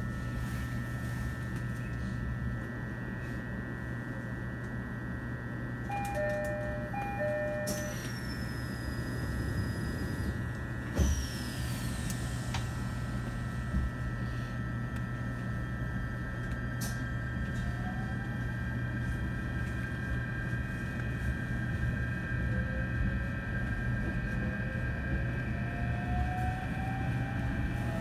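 E129 series electric train standing at a station with its equipment humming steadily. About six seconds in, the two-note door chime sounds twice, and about halfway through the doors shut with a knock. In the last few seconds the traction motors' whine rises steadily in pitch as the train pulls away.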